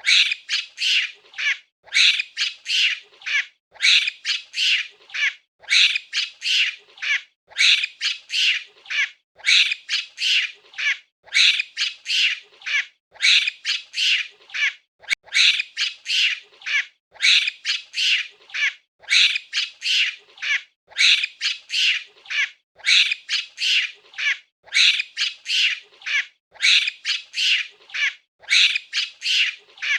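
A monkey giving high-pitched calls in quick clusters of three or four, the clusters repeating steadily about every two seconds as a looped recording.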